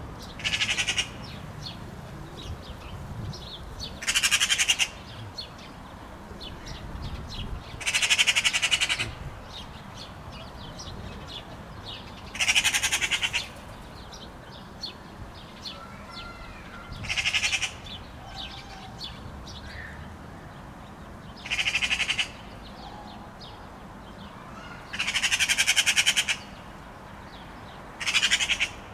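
Eurasian magpie chattering: eight rattling bursts of fast repeated notes, each about a second long and spaced a few seconds apart.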